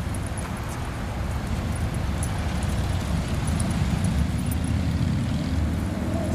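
Wind buffeting the microphone outdoors as a low, uneven rumble that grows a little louder after about two seconds, with faint light clinks scattered through it.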